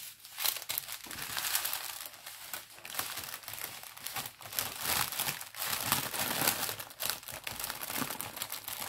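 Packaging of a diamond painting kit crinkling and rustling in the hands as the kit is packed back up, a dense run of irregular crackles.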